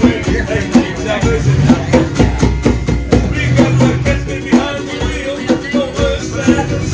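Background music with a steady drum beat and singing.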